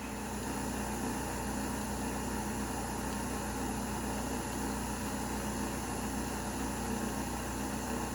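A kitchen appliance's motor running with a steady, even low hum that starts abruptly.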